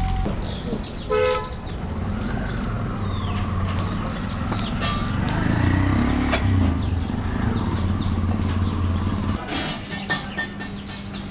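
Street traffic: a vehicle engine running, with one short horn toot about a second in. The engine sound drops away about nine seconds in, leaving scattered clicks.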